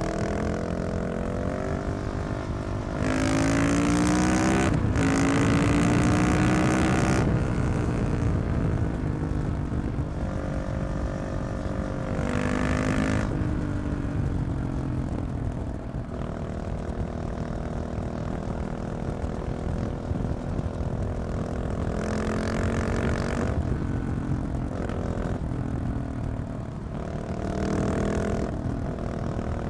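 KTM 690 SMC R single-cylinder engine with a decatted Leovince exhaust, ridden hard on the road. It revs up loudly about three seconds in, with a quick gear change partway through, then eases off. It pulls again several times, its pitch rising and falling with the throttle.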